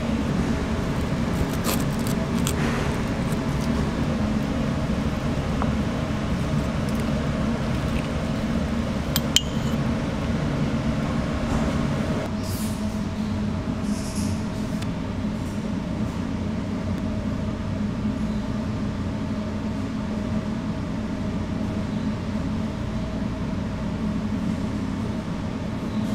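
Steady low machine hum of a shop kitchen, with a few light clinks and taps of utensils and one sharper tap about nine seconds in; the hum drops a little about twelve seconds in.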